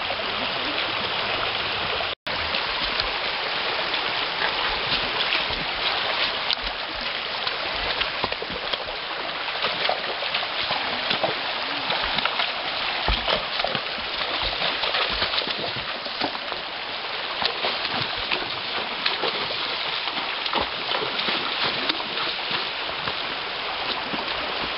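Shallow rocky creek running steadily, with horses' hooves splashing through the water and knocking on the stones in scattered clicks and thuds. The sound drops out for an instant about two seconds in.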